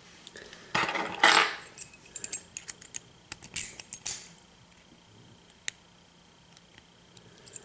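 Small metal padlock parts and tools being handled as the lock is taken apart: a burst of scraping and rattling about a second in, then a run of sharp metallic clicks, and one last click near six seconds.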